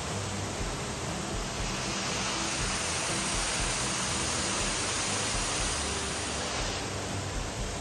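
Steady rushing noise, brighter and hissier for about five seconds in the middle.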